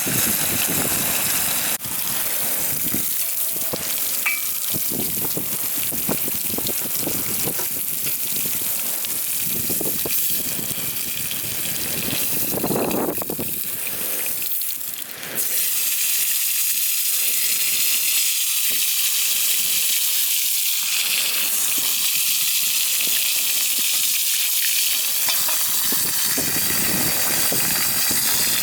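Steady sizzling hiss with scattered small crackles, as food fries over a campfire. The sound shifts abruptly about halfway through to a smoother, higher hiss.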